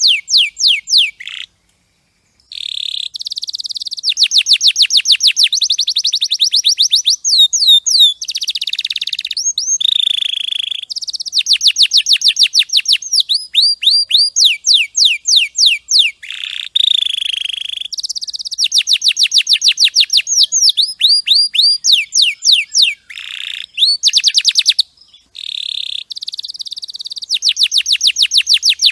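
Domestic canary singing: long, fast trills of repeated downward-sweeping whistled notes, about seven a second, in phrases that change every few seconds, with brief pauses between them.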